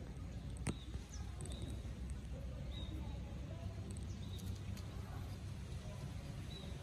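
Outdoor background: a steady low rumble with several brief high chirps scattered through it, and one sharp click a little under a second in.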